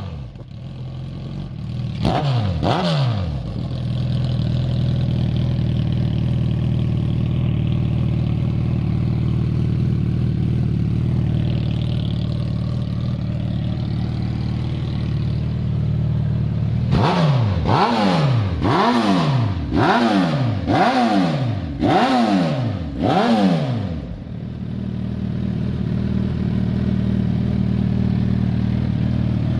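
Suzuki Hayabusa inline-four motorcycle engine running through an aftermarket sport exhaust tip, idling steadily. It is blipped twice early on, and later revved sharply about seven times in quick succession, roughly once a second, before settling back to idle.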